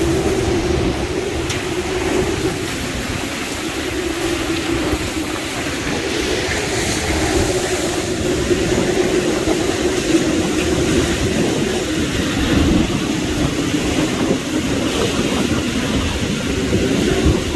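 Hurricane-force wind of Hurricane Ian's eyewall blowing steadily, a dense roar with a wavering low howl running through it and small swells as gusts come through.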